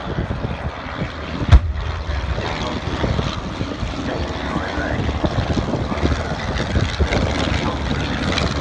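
Piston engines of vintage propeller warplanes running as they fly past, with one sharp, loud bang about a second and a half in from a pyrotechnic explosion on the airfield.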